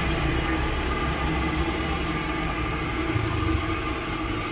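Batter-coated tempe slices deep-frying in a wok of hot oil: a steady sizzle, with a low rumble underneath.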